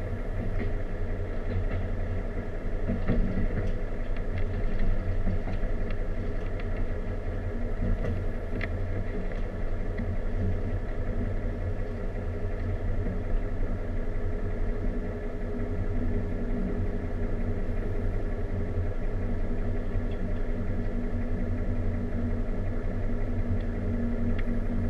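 A passenger train running along the rails, heard from inside the car: a steady rumble with a low hum, and a few faint clicks.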